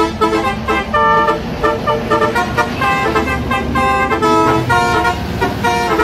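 Multi-tone musical truck horn (telolet style) playing a quick tune of short notes that keep changing pitch, edited onto the footage with varied tones, over the low rumble of passing trucks' engines.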